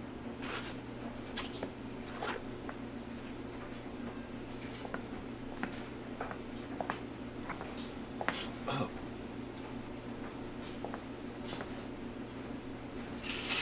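Steady low hum with scattered small clicks and taps. Near the end a loud, high hiss starts: a man's urine stream splashing into a toilet bowl.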